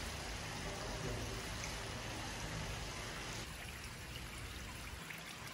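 Steady, even rushing background noise, like running water, with no distinct events; its upper range thins slightly a little past the middle.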